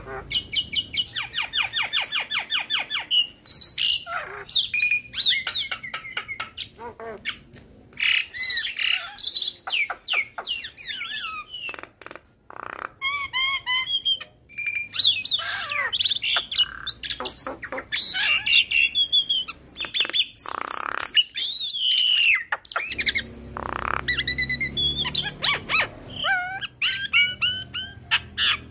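Caged Javan myna singing a continuous, varied song, full of imitated phrases. It runs through a fast rattling trill near the start, many short gliding whistles and several harsh squawks.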